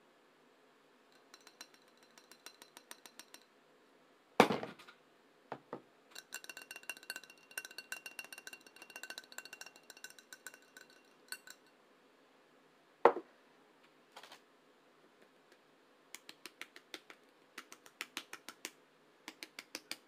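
Cookware being handled on a stovetop: runs of light clicks and clinks, some with a faint ringing, and two sharp knocks about four and thirteen seconds in.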